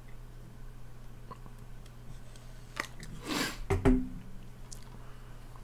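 Plastic disc case being handled and opened: a light click, a short sliding rustle about three and a half seconds in, then a snap of the case just after, the loudest sound, over a steady low hum.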